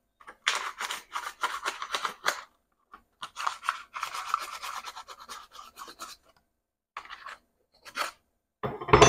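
A metal wrench rubbed hard over paper wrapped on a tube end, pressing the paper into the tube's cut edge to crease a marking line: scratchy rubbing and paper crinkling in two long strokes, then a few short scrapes and a sharp knock near the end.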